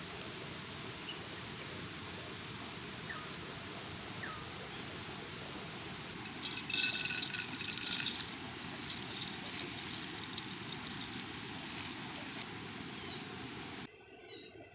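Steady rushing outdoor ambience with a few short bird-like chirps over it, and a louder burst of pitched calls about seven seconds in. The rushing noise cuts off abruptly near the end, leaving quieter chirps.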